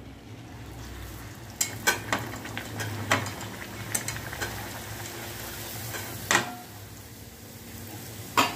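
A puri deep-frying in hot oil in an aluminium kadai, the oil sizzling steadily once the dough goes in. Several sharp clicks and taps come through it.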